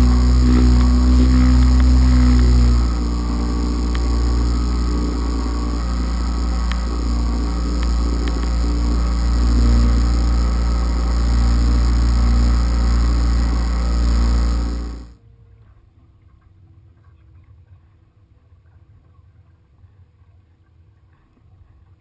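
A boat's motor running steadily under way, with a low, even drone. It cuts off suddenly about two-thirds of the way through, leaving only faint background noise.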